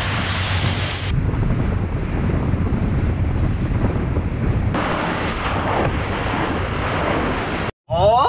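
Wind buffeting the microphone over steady sea and water noise on a small boat offshore; the noise changes abruptly twice where shots are cut together. Near the end it drops out for a moment and music with a singing voice comes in.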